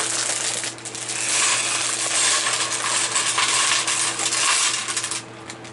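Small plastic LEGO pieces clattering and rattling as a parts bag is opened and emptied, a dense run of tiny clicks that stops suddenly about five seconds in.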